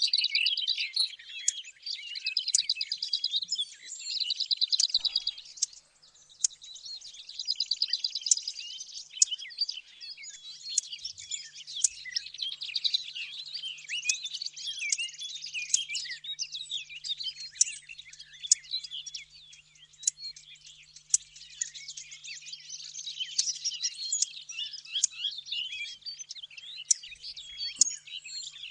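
Recorded songs of willow warbler, lesser whitethroat and blackcap mixed together as a bird-hunting lure call: dense, continuous high-pitched warbling and trills, with many phrases overlapping.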